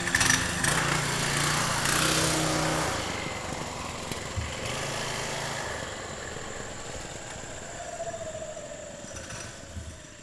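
Trailmaster MB200-2 mini bike's stock 196cc single-cylinder engine running as the bike is ridden, growing fainter over several seconds as it moves away, its pitch sliding down near the end.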